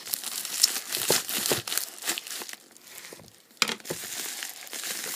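Packaging crinkling and rustling in irregular bursts with a few sharp clicks as a box is cut open with scissors and unpacked, briefly pausing a little past halfway before a sharp click.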